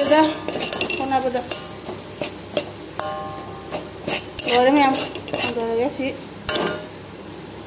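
A metal spatula stirring and scraping a thick mashed potato filling around a metal wok, with repeated clicks and scrapes against the pan. A person's voice is heard over it at times.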